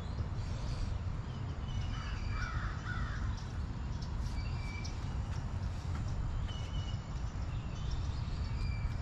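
Outdoor birdsong: one harsh, raspy bird call about two seconds in, lasting about a second, over many short high chirps from small birds and a steady low rumble.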